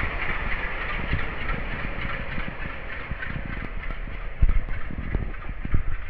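WDM-3D diesel locomotive's engine running close by, heard from the side of a train, with irregular low thumps.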